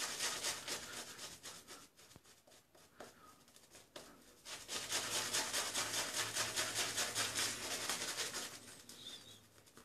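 Zenith shaving brush scrubbing lather onto a bearded face in quick back-and-forth strokes, its bristles rubbing on skin and stubble. There is a short spell of strokes at the start, a pause, then a longer, louder spell of brisk scrubbing from about four and a half seconds to near the end.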